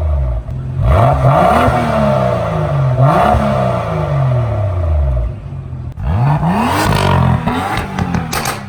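BMW M2's turbocharged inline-six running through a freshly installed Fi valved exhaust, revved three times and falling back toward idle between revs, with a few sharp cracks near the end.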